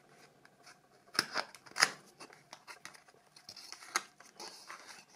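Cardboard product box being opened and handled: a few sharp clicks and taps, then a soft sliding rustle of packaging.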